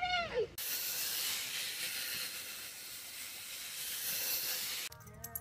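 A steady hiss, lasting about four seconds and cutting off suddenly near the end, opened by a brief high cry that falls in pitch.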